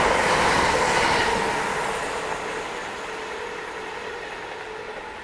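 Class 317 electric multiple unit passing at speed, its wheel and rail noise loudest at first and fading steadily as it draws away.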